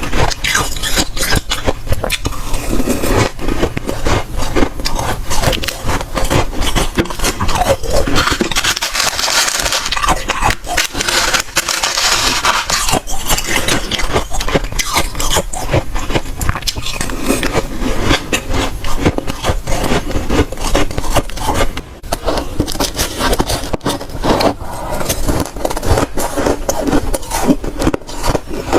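Close-miked crunching of soft, dry freezer frost being bitten and chewed: a dense, irregular run of sharp crackles and scrapes.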